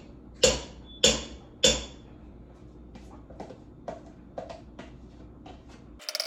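A spoon knocked sharply three times against the edge of a pan, about half a second apart, to shake off a spoonful of butter, followed by lighter clicks and scrapes.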